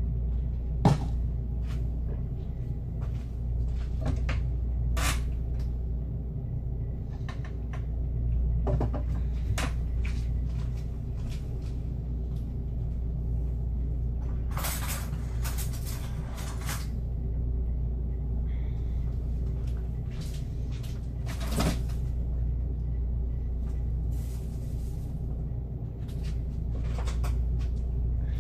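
Kitchen cupboards, drawers and utensils being handled: scattered knocks and clatters, with a busier run of clattering about halfway through, over a steady low hum.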